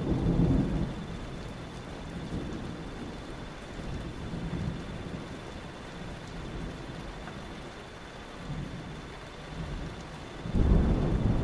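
Thunderstorm: rain falling steadily under rolling thunder. A rumble dies away in the first second, and a new, louder peal of thunder rolls in near the end.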